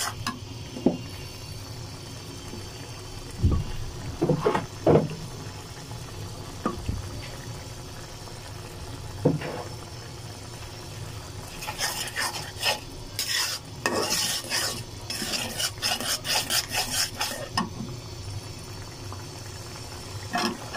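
Steel spatula stirring and scraping spiced onion masala around a karahi, with occasional knocks against the pan and the masala frying underneath. About halfway through, the stirring turns into a quick run of repeated scrapes.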